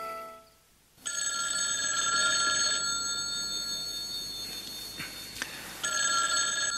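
A telephone bell ringing twice: the first ring starts suddenly about a second in and lasts close to two seconds, and the second starts near the end. Just before the first ring, the tail of a music cue fades out.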